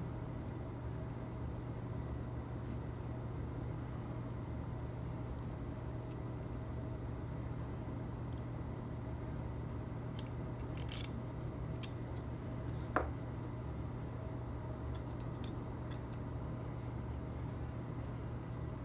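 Small screws being loosened with a 3 mm hex driver: a few faint ticks and one sharp metallic clink about 13 seconds in, over a steady low hum.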